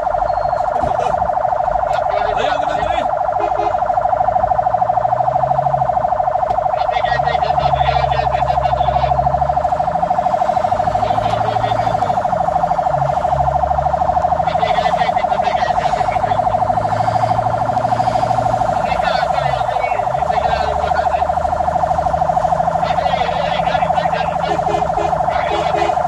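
Fire engine siren heard from inside the cab: one loud, steady tone pulsing very fast. Beneath it the truck's engine climbs and drops in pitch several times as it accelerates and shifts gear.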